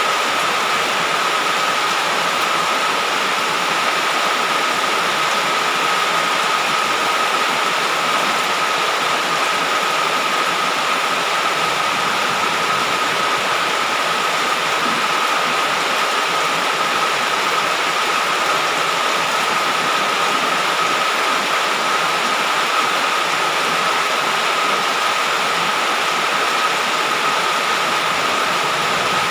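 Heavy rain falling steadily, an even hiss with a thin steady high tone over it.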